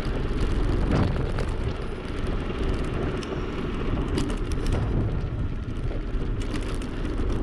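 Wind rumbling on the microphone as a bicycle rolls along block paving, with the steady rolling noise of its tyres.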